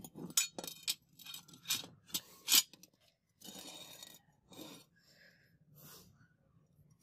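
Brass sword-guard pieces clinking and knocking against a steel blade and tang as they are handled and fitted. A quick run of sharp clinks comes first, the loudest about two and a half seconds in, then a short scrape and a few lighter knocks.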